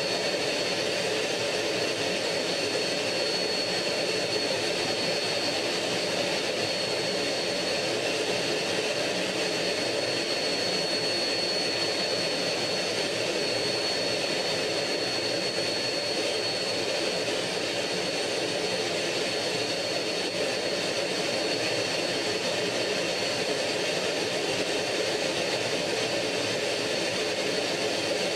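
MiG-15's turbojet engine running steadily in flight, heard from inside the cockpit: an even rush of engine and air noise with a steady high whine.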